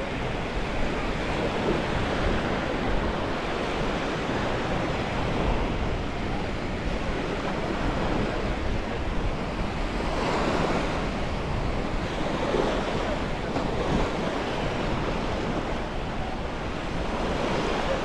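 Surf washing onto a sandy beach, with wind buffeting the microphone.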